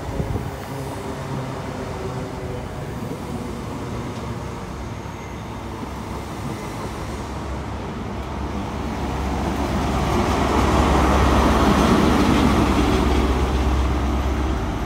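A diesel passenger train pulls out of the station, most likely a South Western Railway Class 159 diesel multiple unit. Its engines and wheel noise build up steadily and are loudest about ten to thirteen seconds in, over a continuous low diesel hum.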